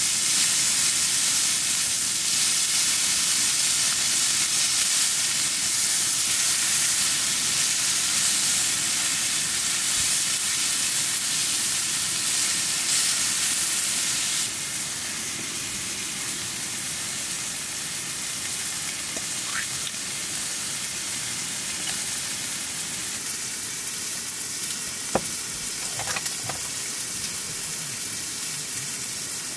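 Food sizzling as it fries in a hot pan, a steady crackling hiss. The sizzle gets quieter about halfway through, and a few light clicks come near the end.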